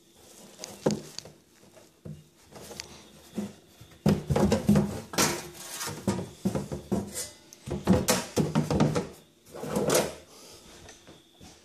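Steel handsaw blade being pushed and wiggled into a large plastic tub, knocking and scraping against the tub's sides in irregular bursts, the loudest a few seconds in and again about halfway through.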